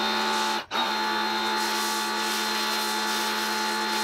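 Teande electric pressure washer running under load, feeding a foam cannon: a steady motor hum with a fast, even pulsing from the pump and a hiss of spray over it. The sound drops out for an instant under a second in, then carries on unchanged.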